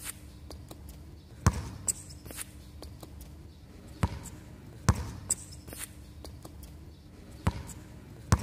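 A basketball being dribbled on a hard outdoor court: several hard bounces at uneven intervals, with lighter taps between them.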